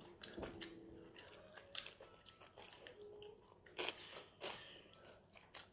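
Close-up eating sounds: chewing and biting, with scattered short clicks of metal chopsticks against a bowl.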